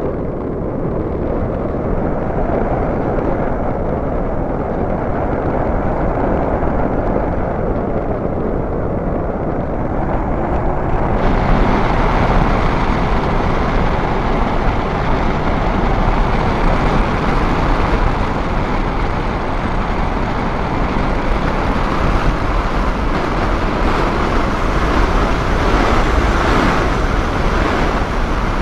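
Airflow rushing over an RC glider in flight, picked up by its onboard keychain camera's microphone as a steady rushing noise. The noise turns brighter and a little louder about eleven seconds in.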